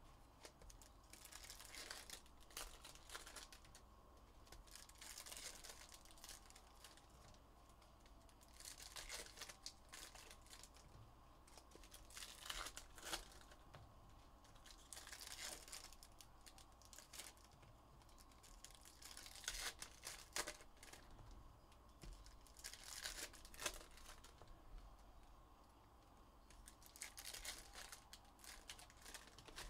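Faint, irregular crinkling and tearing of trading-card pack wrappers being opened, with occasional sharper crackles.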